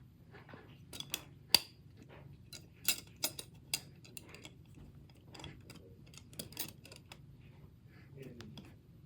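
Irregular light clicks and knocks of small hard kitchen items, utensils and a container, being handled on a table, the sharpest about a second and a half in and a quick cluster around three seconds in.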